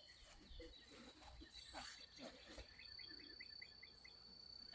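Near silence: faint outdoor background with faint distant voices. Past the middle comes a quick run of about eight high chirps, with a thin steady high tone alongside.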